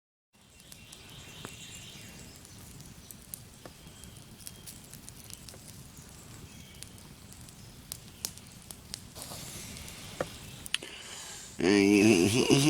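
Campfire crackling: scattered sharp pops and snaps over a low, steady background. About a second before the end, a much louder voice cuts in.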